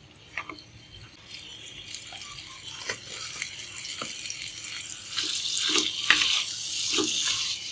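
Pieces of bain fish (spiny eel) sizzling as they fry in oil in a pan, stirred by a wooden spatula that scrapes and knocks against the pan. The sizzle swells about five seconds in.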